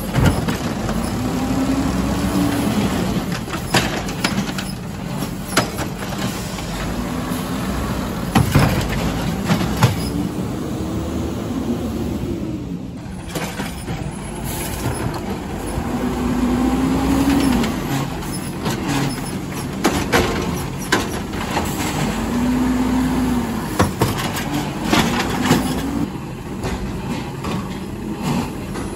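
Garbage truck engine revving up and back down every few seconds while it packs trash, with sharp knocks and bangs scattered through it.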